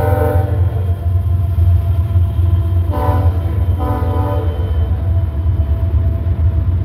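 Nathan K5HL five-chime air horn on a GE ES44AC diesel locomotive: a blast that ends about half a second in, then two short blasts about three and four seconds in. Under it runs the steady low rumble of the passing diesel locomotives and intermodal freight cars.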